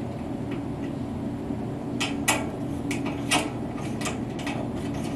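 A hex key turned by hand in a screw head on a steel cabinet panel, giving a series of sharp metallic clicks from about two seconds in as the key is re-seated between turns. A steady low hum runs underneath.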